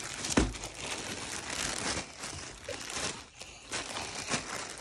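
Clear plastic wrapping on a packaged fleece blanket crinkling and rustling as it is handled, with a dull knock about half a second in.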